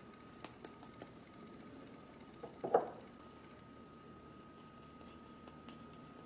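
Small ceramic bowls being handled on a wooden tabletop: four light, quick clinks in the first second, then a single louder knock a little under three seconds in.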